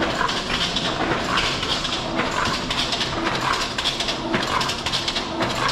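A barn full of young laying hens calling and clucking, a new call every half second or so, over the steady hum of the egg-collection conveyor machinery.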